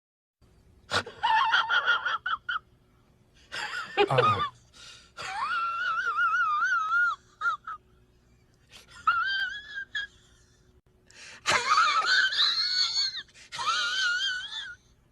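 A string of short meme sound-effect clips: several bursts of high-pitched, wavering, wheezy cries separated by brief pauses.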